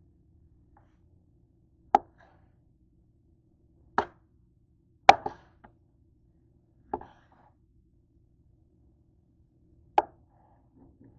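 A kitchen knife chopping through raw chicken onto a cutting board: five separate sharp knocks a second or two apart, the loudest about five seconds in.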